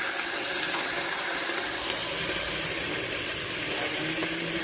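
Steady hiss from a pot of cabbage cooking over a portable gas stove.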